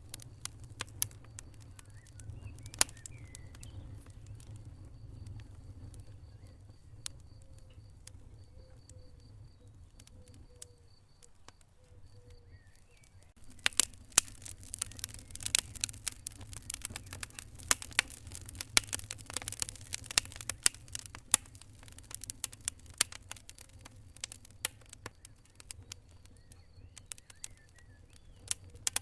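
Wood fire crackling and popping in a fireplace over a low steady rumble. The pops are sparse at first, then come thick and fast from about halfway through before thinning out again near the end.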